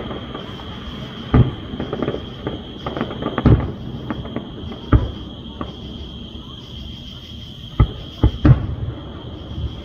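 Aerial firework shells bursting: about six loud booms at irregular intervals, with smaller pops between, and three in quick succession near the end. A steady high-pitched drone runs behind them.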